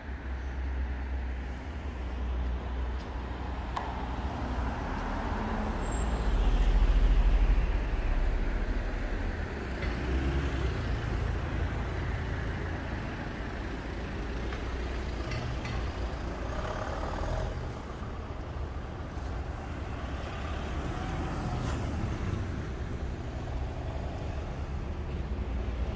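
Street traffic: motor vehicles passing at close range, with a heavier vehicle loudest about seven seconds in.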